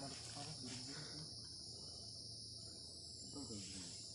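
Steady chorus of forest insects: a constant high-pitched buzz that does not let up. Faint low voices come in briefly near the start and again a little past three seconds in.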